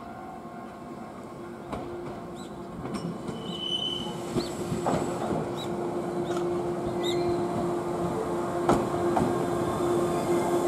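JR West KuMoHa 123 single-car electric railcar approaching and pulling into the platform, growing steadily louder. A few sharp clacks from the wheels come through, along with a brief high squeal about four seconds in and a steady hum in the second half.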